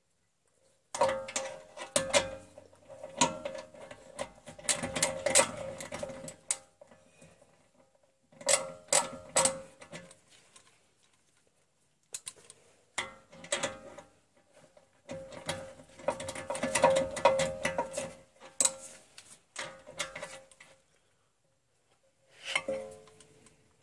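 Hand ratchet clicking rapidly as it runs in the rear brake caliper bracket bolts, in several spells of one to five seconds with short pauses between.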